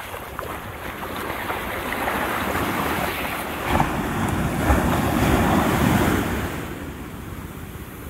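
Ocean surf: a wave swells about two seconds in, is loudest past the middle and washes away near the end, with wind rumbling on the microphone.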